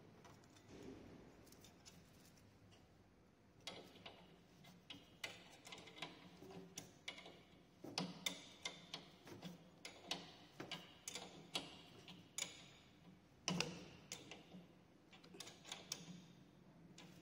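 Irregular clicks and taps from a pedal being threaded by hand into an exercise bike's crank arm, starting a few seconds in and coming every second or so, sometimes in quick pairs.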